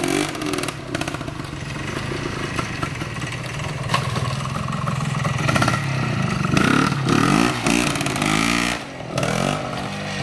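Vintage trials motorcycle engine running at low speed while being ridden through a section, revving up and down in short throttle bursts.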